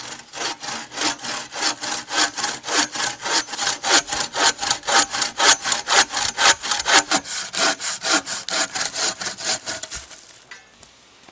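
Bow saw cutting through a small log by hand, with quick, regular push-and-pull strokes. The sawing stops about ten seconds in as the cut goes through.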